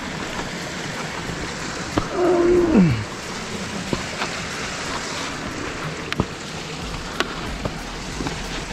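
Gloved hands and shoes scraping and crunching on icy snow while climbing a steep slope, over a steady hiss, with a few sharp clicks. About two seconds in, a short strained groan falls in pitch.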